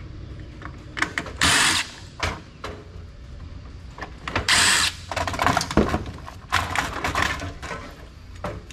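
Two short bursts of a cordless power driver spinning, about a second and a half in and again a little after four and a half seconds, between clicks and rattles of computer parts being handled.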